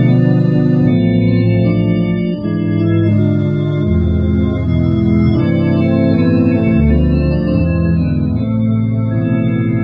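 FX-1 electronic organ playing a slow tune in held chords, with low bass notes underneath that change every second or two.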